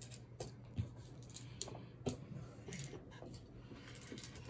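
Faint, irregular small clicks of plastic dice being gathered and rattled in the hand for a tabletop wargame roll.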